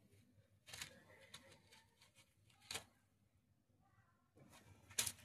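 Near silence, broken by a few faint, short rustles and clicks: about a second in, near three seconds, and a slightly louder one near the end.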